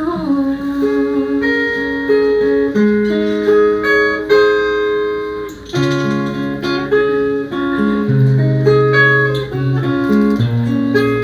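Instrumental interlude of a live pop ballad: guitar chords and melody notes, with a low bass line moving under them.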